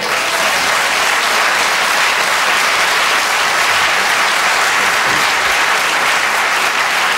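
Studio audience applauding: dense, steady clapping that starts suddenly.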